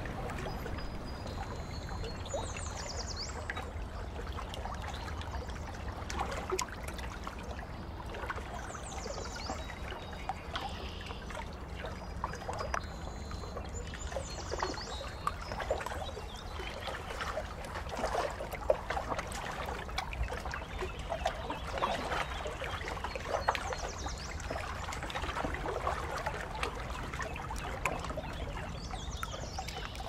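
Water trickling and lapping in a swimming pool, a steady wash full of small splashes, with a bird chirping briefly a few times.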